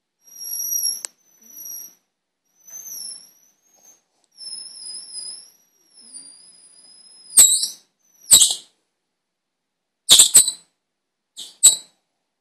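A rubber balloon squealing in high, thin, wavering bouts, the longest running about three seconds and dipping in pitch near its end. In the second half come four short, sharper and louder squeaks.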